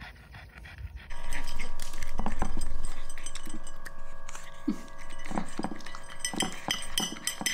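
Pug puppy eating dry kibble from a ceramic bowl: irregular clinks of kibble and teeth against the bowl, with crunching. A low rumble runs underneath for the first couple of seconds.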